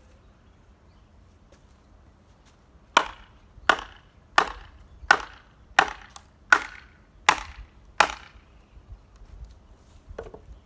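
Axe chopping firewood: eight sharp, evenly spaced chops in quick succession, each with a brief ringing tail, followed near the end by a single fainter knock.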